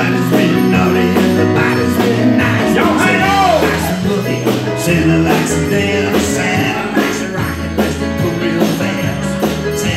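Live band playing an up-tempo rock-and-roll number with electric guitar, bass and drums on a steady beat, a male voice singing over it about three seconds in.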